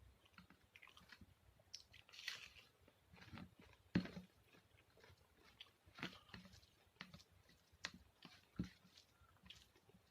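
Close-miked chewing and wet mouth sounds of someone eating rice with potato and onion, with scattered crunchy bites and smacks; the sharpest comes about four seconds in.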